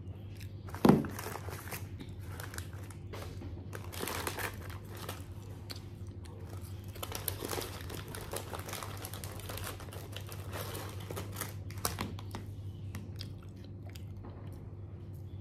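Close-up eating sounds: chewing fried chicken and crinkling a paper food wrapper, in bursts of rustling. A single sharp thump about a second in is the loudest sound, over a steady low hum.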